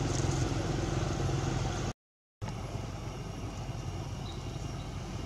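A motor engine running steadily at idle, a low hum. The sound drops out completely for about half a second around two seconds in, then the engine hum carries on with more clatter mixed in.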